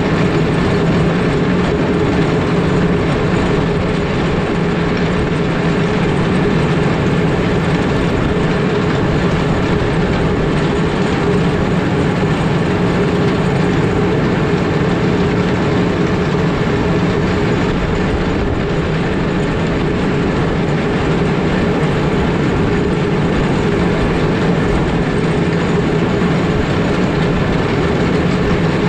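Cat 140M3 motor grader working along an icy road: the diesel engine and the blade's toothed bit boards grinding over ice make one steady, even rumble and scrape that does not let up.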